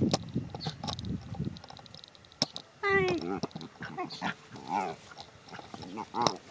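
An animal vocalising: short low grunts, then a series of pitched, wavering calls starting about three seconds in.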